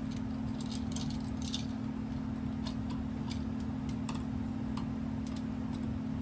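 Scattered light clicks and small rattles of wire and tools being handled while wiring a light switch, over a steady low hum.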